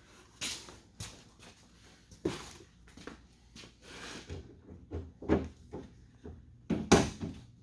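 Irregular clicks, knocks and rattles of a car's door hardware being worked by hand as the inside door handle is pulled at. The handle is still held by its fastenings. One sharp knock near the end is the loudest.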